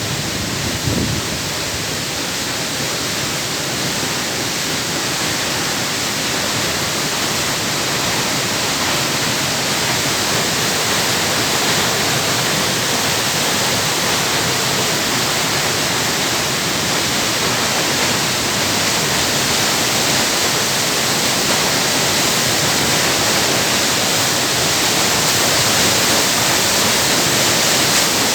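Water pouring down the Croton Dam spillway: a loud, steady rushing that grows slightly louder over the stretch, with a brief low bump about a second in.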